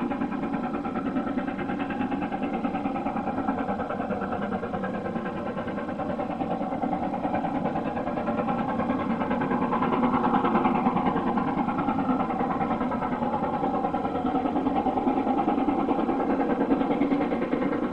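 Train running steadily, a continuous mechanical drone that swells slightly about ten seconds in.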